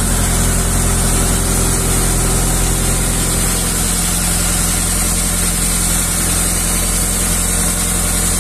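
Small fishing boat's engine running steadily while underway, a constant low drone over a steady hiss of water and wind.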